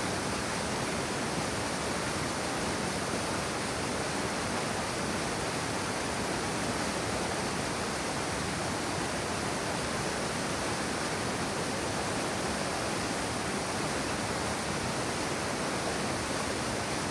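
River in high water pouring over a flood-control cascade, a steady rushing torrent of white water.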